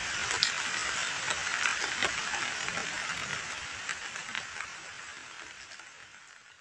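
Rain falling onto a muddy pool of standing water: a dense hiss dotted with many separate drop splashes. It fades away over the last few seconds.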